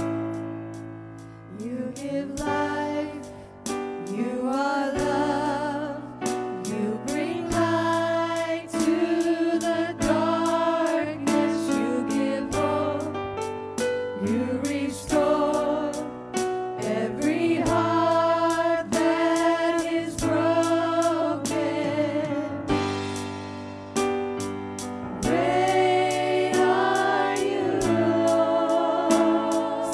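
Gospel worship song: voices singing long notes with vibrato over keyboard chords and a steady beat.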